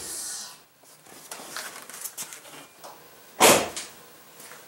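A few faint knocks and rustles, then one loud, short thump about three and a half seconds in.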